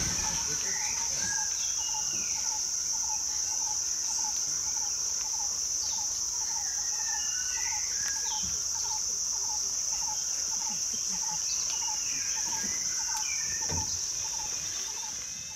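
Forest ambience: a steady high-pitched insect drone, with a short note repeated about twice a second and scattered bird calls over it.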